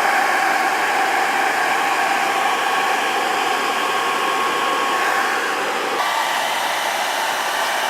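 Hair dryer running on its warm setting, blowing a steady rush of air with a whine through a cut-off plastic bottle into an air mattress to inflate it. Its tone shifts slightly about six seconds in.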